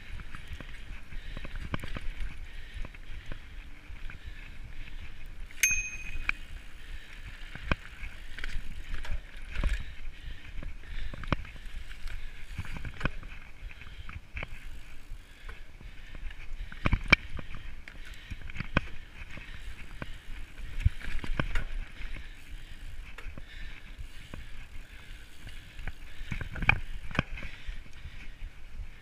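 Mountain bike ridden fast over a dirt forest trail: steady tyre and trail noise with frequent knocks and rattles as the bike goes over bumps and roots, and a brief high ring about six seconds in.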